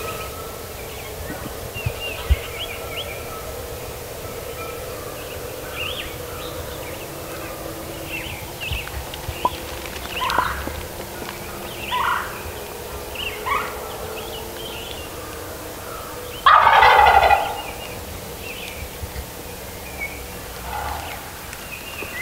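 Wild turkey gobbler gobbling: one loud gobble about a second long, about three-quarters of the way in, with a few shorter calls before it and songbirds chirping throughout.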